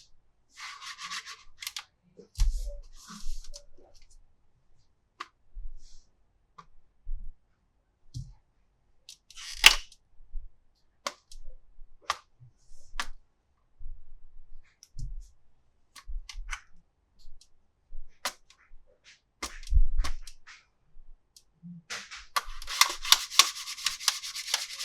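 Plastic toys being handled: scattered clicks, taps and knocks, with a stretch of rustling just after the start and a longer one near the end.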